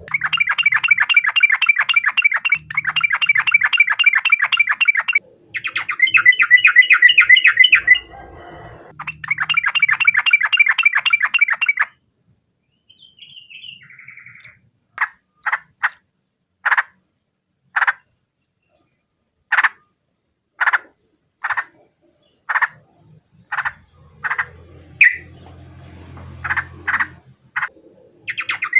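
Yellow-vented bulbul (trucukan) singing: fast, rapidly repeated rattling trills in four long bursts over the first twelve seconds, then a string of short single notes about a second apart.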